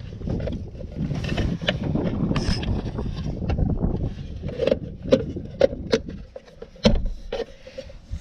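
Wind buffeting the microphone, a shifting low rumble that dies away after about six seconds. Over its second half come half a dozen light knocks and clicks.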